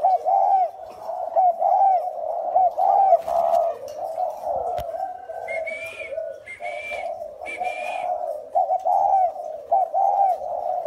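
Spotted doves cooing over and over, several birds' coos overlapping in a continuous run of short arching notes. Between about five and eight seconds in, three higher whistled notes stand out over the coos.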